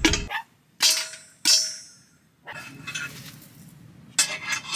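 Metal cookware clanging twice, about half a second apart, each hit ringing on briefly; then a softer rustling noise and a short clatter near the end, as the pot used for butter popcorn is handled.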